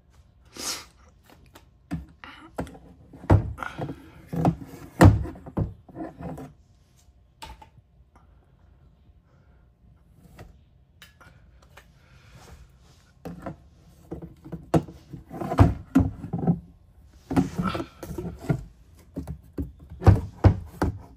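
Irregular knocks, thunks and clatter of hard plastic being handled, coming in clusters with a quieter stretch in between: the clear acrylic door and plastic hide of a snake enclosure.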